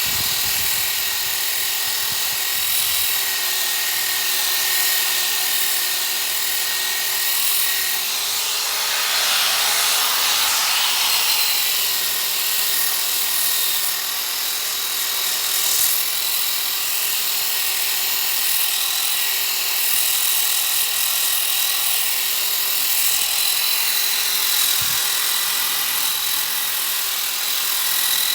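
Electric power tool spinning a 125 mm sanding disc over a wooden tabletop, running at a steady whine with the rasp of coarse 80-grit sandpaper on wood, which grows louder and scratchier around ten seconds in.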